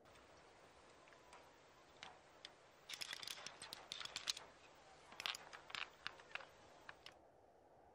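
An irregular run of sharp clicks and clacks over faint hiss, beginning about two seconds in, thickest in two clusters around three to four and five to six seconds, and stopping about seven seconds in.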